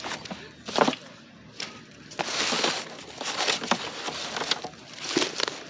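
Handling noise: a knock, a rustling scrape and scattered clicks as objects are moved about.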